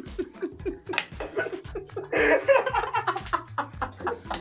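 Two men laughing hard in a run of short, breathy laugh pulses, with a louder burst of laughter about two seconds in.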